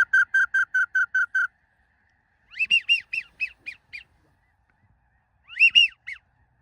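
Geese calling: a quick, even run of high honks over the first second and a half, then two short bursts of higher, arched honks a few seconds apart.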